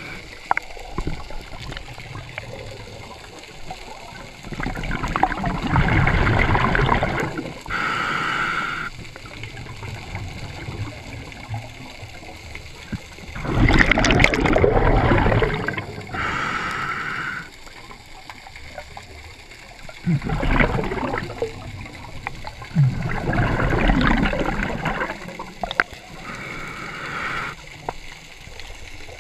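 Scuba diver breathing through a regulator underwater. Loud gurgling surges of exhaled bubbles alternate with a shorter hissing inhale, about three breaths in all.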